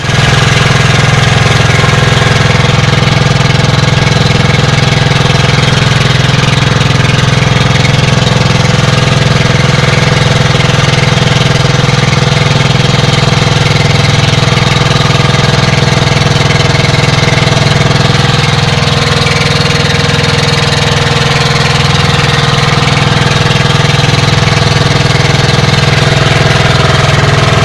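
Engine of a wooden outrigger fishing boat running steadily, heard loud and close from on board; its even drone hardly changes.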